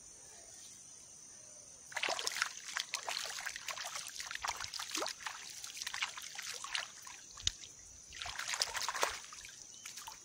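Hands splashing and scooping in shallow river water at the bank, with trickling and dripping. The splashing starts about two seconds in, runs for several seconds, and comes again briefly near the end.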